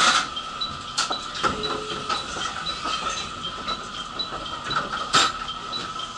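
Repeating high two-note electronic beeping, a few times a second, over a steady hum, with a sharp knock at the start and another about five seconds in, inside a stopped electric train car with its doors open at a platform.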